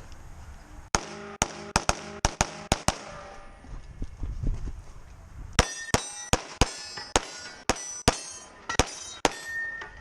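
Rapid gunshots on a steel-target course of fire, each hit followed by the ringing clang of the steel plate. The shots come in two quick runs of about ten, with a pause of a couple of seconds between.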